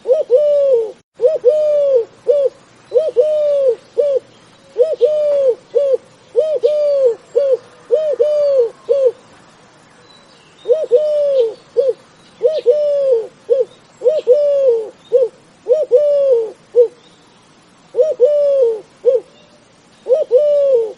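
Dove cooing over and over, in phrases of three or four low, arching coos with short pauses between them and a longer pause about halfway through. Small birds chirp faintly and higher in the background.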